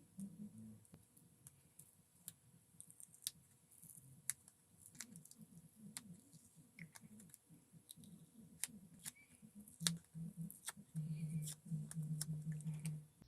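Scattered sharp clicks and small taps from the plastic parts and tools of a small Bluetooth speaker being taken apart, irregular and a few per second. A low, rapidly pulsing hum comes in over the last couple of seconds.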